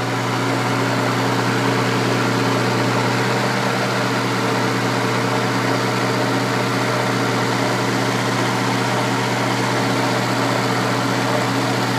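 Engine of a 1965 Kohler 6.5 kW generator set running steadily under electrical load, an even hum at constant level. It runs smoothly again on a new magneto condenser; the old one tested good but was shorting in operation.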